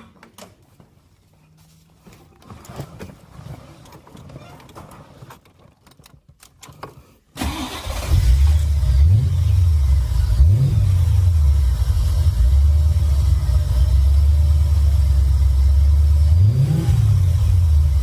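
A few faint clicks, then about seven seconds in the Corvette's V8 starts and settles into a steady idle, revved briefly three times. It is running for the first time since its damaged electronic spark timing connector was replaced.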